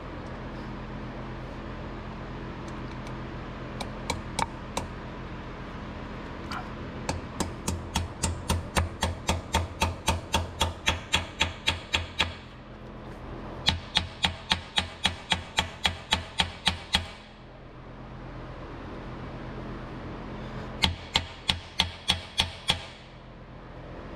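Small hammer tapping steel plugs into the cylinder-deactivation (DOD) oil passages in the lifter valley of a GM 5.3L LT V8 block, metal on metal. A few scattered taps come first, then three quick runs of taps at about four a second. A steady low hum runs underneath.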